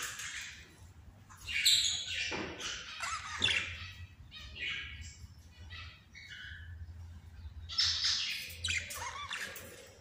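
A group of caged budgerigars chirping and warbling, with sharp squawks among the quieter chatter; the loudest calls come about two seconds in and again near eight seconds.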